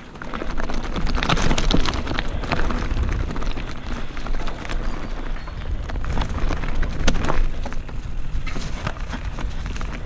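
Mountain bike rolling downhill over loose flat stones: the tyres crunch and clatter over the rock, with many sharp clicks of stones knocked against each other, over a steady low rumble.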